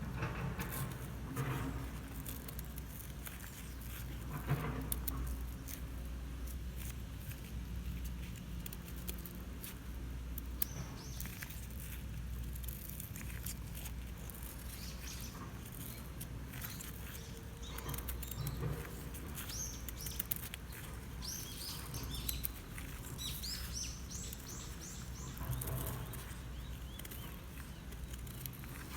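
Small birds chirping, a scattering of short high calls that come and go, most of them in the second half. Over them, light clicks and rustles of handling.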